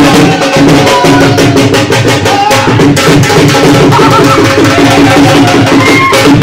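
Dhol and tasha drums playing a fast, dense dance beat, very loud throughout.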